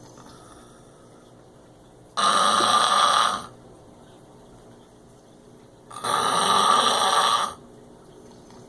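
A man snoring loudly: two long snores, each about a second and a half, about four seconds apart, with a much quieter stretch between them.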